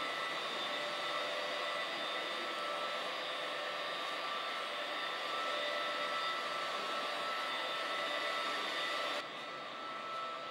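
Walk-behind concrete floor grinder running with a steady whining hum. About nine seconds in it cuts off abruptly to a quieter, duller steady noise.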